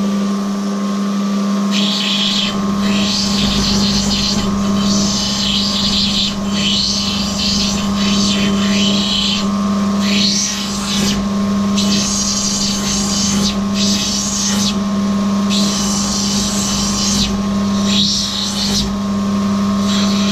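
Rough opal being ground on the wet wheel of a water-fed lapidary grinding machine: the machine's motor hums steadily, and from about two seconds in there are about ten short rasping stretches, one each time the stone is pressed to the wheel.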